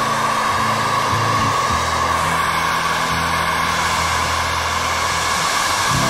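Handheld hair dryer running steadily, blowing hot air onto stiff PVC conduit to soften it. Background music with low bass notes plays underneath.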